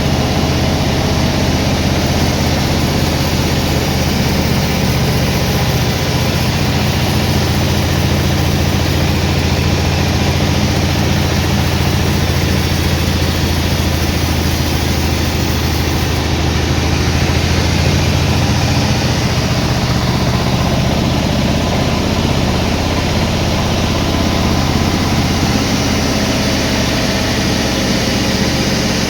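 Sawmill engine running steadily with a heavy low drone that eases off about two-thirds of the way through.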